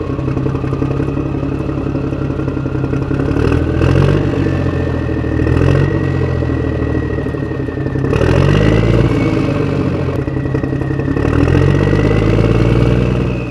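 Small DC electric motors of a homemade toy tractor and its mini circular saw running, a high whine that slowly rises in pitch over rattling gears. The sound swells several times as the drive motors labour through sand.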